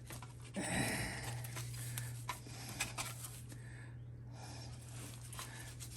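Hands working a glued plastic model part loose: a few faint clicks of the plastic pieces over a steady low hum, with a soft rush of noise about a second in.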